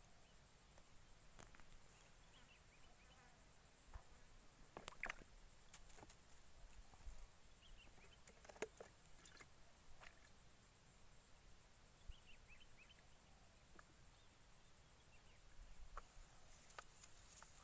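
Near silence: faint outdoor background with a few soft clicks and taps of hands working a fishing hook and line, the clearest about five and eight and a half seconds in.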